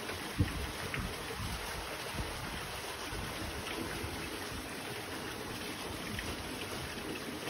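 Steady rain falling, an even hiss, with scattered soft low thumps, the sharpest about half a second in.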